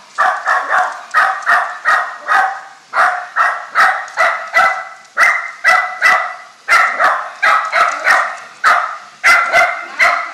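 A dog barking rapidly and repeatedly, two to three barks a second in short runs with brief gaps. It is alarm barking at an unfamiliar robot vacuum cleaner.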